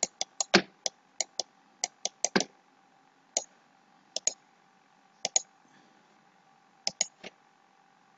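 Computer mouse buttons clicking, short sharp clicks often in quick press-and-release pairs, irregularly spaced, over a faint steady hum.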